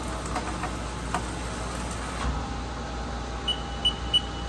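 A Haas CNC lathe runs with a steady hum, with a few light clicks in the first second and a steady tone coming in about halfway through. Near the end come three short high beeps from the control keypad as the jog buttons are pressed.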